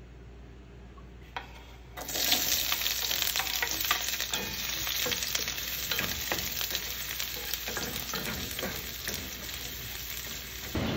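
Sliced red onions frying in hot oil in a granite-coated wok, stirred with a wooden spatula: a steady sizzling hiss full of small crackles that starts about two seconds in.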